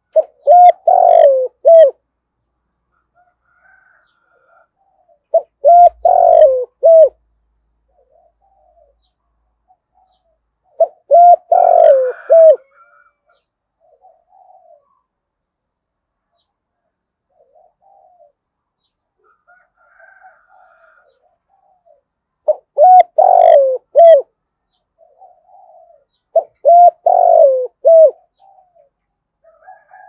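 Spotted dove cooing: five phrases a few seconds apart, each of three or four low hooting notes, with faint chirps between them.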